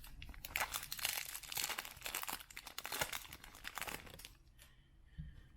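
Foil wrapper of a baseball card pack crinkling and tearing as it is ripped open by hand, a dense crackle lasting about four seconds.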